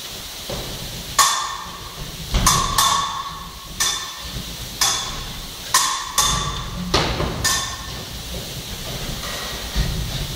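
Fencing blades clashing in a bout: a quick, irregular run of about nine sharp metallic clicks, each with a brief ring.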